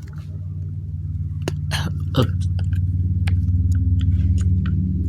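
A small motor running with a steady low hum that grows slowly louder, with scattered sharp clicks over it.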